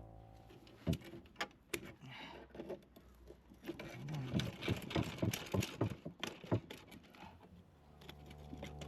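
Scattered light clicks and knocks of hand tools working on the pruner's metal parts, with a quick run of them about halfway through, as stubborn parts are worked loose.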